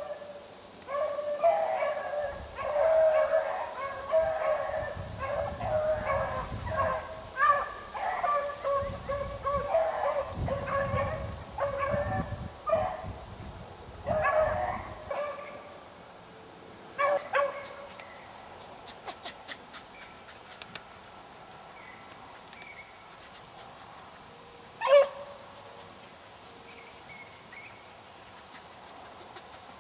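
A pack of beagles baying as they run a cottontail rabbit's scent trail. For the first half the calls come thick and overlapping; after that only scattered barks are left, with one loud bark a little before the end.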